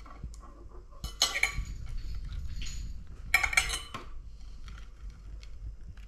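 Kitchen utensils and dishes clinking: two short bouts of clatter with a bright ring, about a second in and again a little past three seconds.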